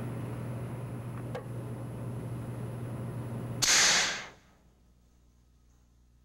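A 30mm high-explosive round detonating on a target boat: a single loud, sharp bang about three and a half seconds in, lasting under a second, over a steady hiss and low hum of the field recording. The sound cuts off suddenly to near silence right after the bang.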